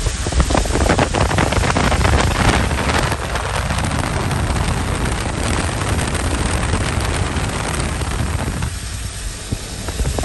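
Wind buffeting the microphone with steady road and traffic noise, recorded from a car moving at speed; no engine note stands out.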